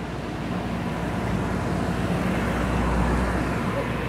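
A motor vehicle passing, its engine and road noise swelling to a peak about three seconds in and then fading.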